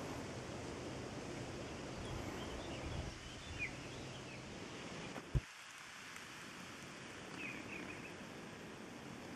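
Outdoor ambience with rustling and a few short bird chirps. A single sharp knock about five seconds in is the loudest sound.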